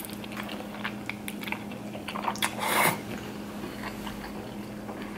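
Wet chewing and mouth clicks of someone eating soft, creamy fettuccine alfredo, with a brief louder rush of noise about two and a half seconds in. A faint steady hum runs underneath.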